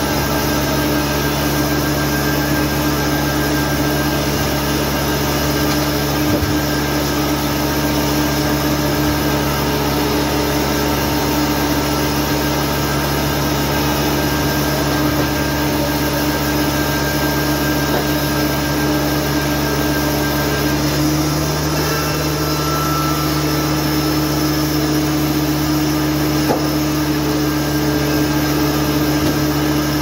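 Foley Belsaw circular sawmill running: a loud, steady machine drone that shifts slightly in tone about twenty-one seconds in.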